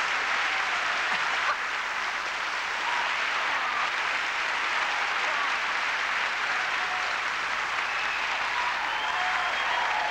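A large theatre audience applauding steadily in a long ovation.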